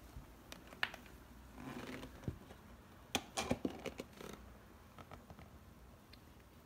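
Cat pawing and biting at a centipede on a wooden floor: scattered light clicks and taps, a brief soft rustle just before two seconds in, and a tight cluster of sharper clicks about three to four seconds in.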